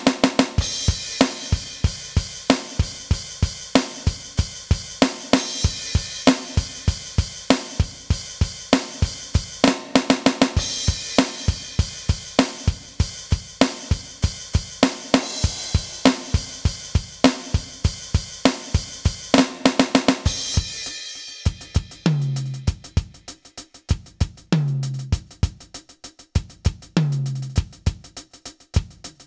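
Aroma TDX-25 electronic drum kit on its 'Funky Rub' preset, played in a steady funk groove of kick, snare and hi-hat. About two-thirds of the way through, the groove gives way to repeated tom phrases that step down in pitch, ending on a longer fill down the toms.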